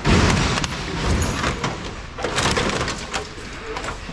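Sheet-metal scrap and appliance casings being unloaded: a loud crash right at the start, then a run of metal bangs and rattles.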